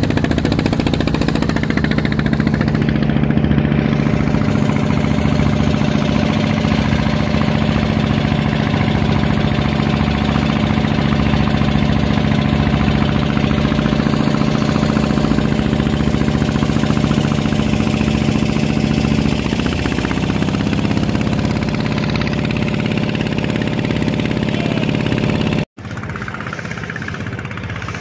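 Small fishing boat's engine running steadily under way, with water rushing along the hull. Its pitch shifts a little about twenty seconds in, and near the end the sound breaks off abruptly and resumes quieter.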